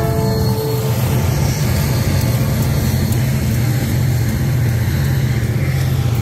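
Two diesel locomotives passing close by, their engines running with a loud, steady low rumble; the horn trails off about half a second in.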